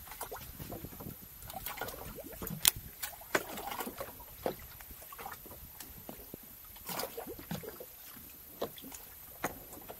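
Water slapping and splashing against the hull of a drifting boat, with scattered sharp knocks and clicks. The loudest knock comes about two and a half seconds in.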